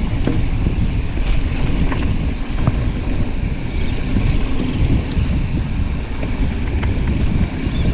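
Wind buffeting the microphone of a mountain biker riding a dirt trail: a steady low rumble, with a few light clicks and rattles from the bike.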